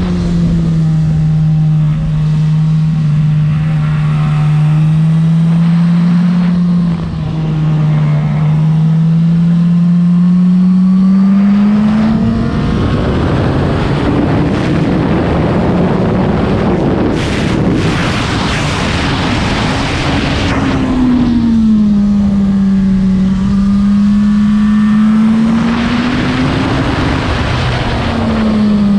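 Suzuki GSX-R1000 K7's inline-four engine heard from on board under way, its revs rising and falling slowly, with a short dip about seven seconds in. For several seconds in the middle, loud wind rush over the microphone drowns the engine out.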